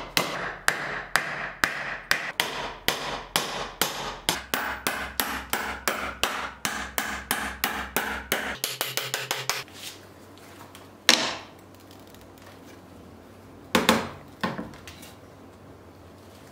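Hammer blows driving a nail into a wooden block, an even series of sharp strikes about three a second for roughly the first ten seconds. After that come a few separate sharp knocks: one in the middle and two close together a little later.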